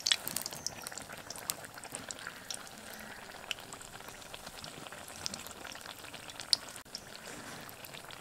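Sweet-potato malpua deep-frying in hot oil in an iron kadai, sizzling steadily with scattered crackles and pops, just turned over to fry the second side.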